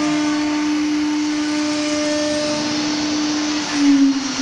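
ATC CNC router running with a steady motor whine over a noisy hum. Near the end the whine starts to fall in pitch as the machine winds down.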